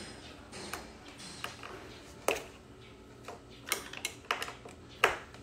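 Irregular sharp clicks and knocks of chair parts and hardware being handled and fitted during assembly, about eight in a few seconds, the loudest about two seconds in and near the end.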